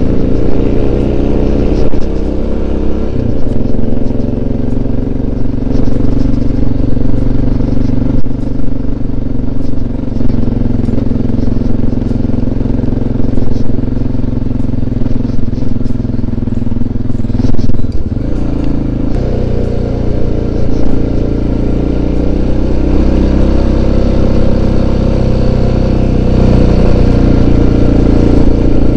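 Single-cylinder dirt-bike engine running under way on a gravel road, recorded from the bike itself. Its note shifts with throttle and gear changes, most clearly about 3 seconds in and around 18 to 19 seconds.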